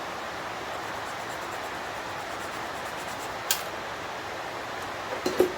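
Steady background hiss, with a sharp click of metal about three and a half seconds in and a quick cluster of clicks just before the end, as small brass terminals are worked off a salvaged part with hand tools.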